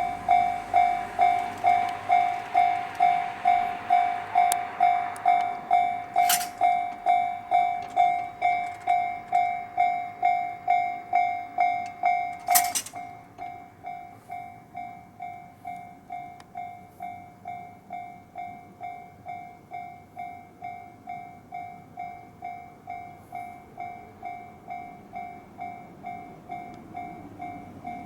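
Japanese railway level-crossing warning bell ringing as a train approaches: a steady electronic ding repeating about twice a second. About 13 seconds in, the bell suddenly drops to a much lower volume and keeps ringing, with two sharp clicks along the way.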